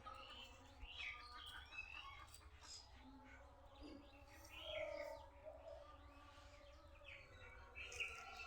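Faint bird chirps and calls, short and scattered, over a faint low steady rumble.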